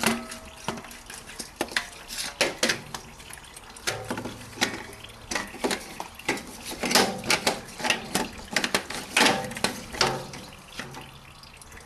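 Irregular clinks and knocks of a cup-type oil filter wrench being handled and bumped against the oil filter and surrounding metal while it is worked into place underneath the car.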